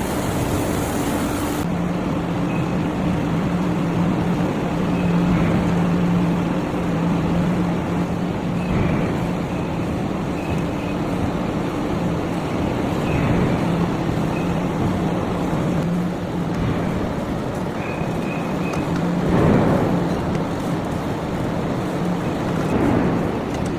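Heavy forging and ring-rolling machinery running with a steady low hum under a wash of mechanical noise, with a few short high squeals and a brief louder surge about twenty seconds in.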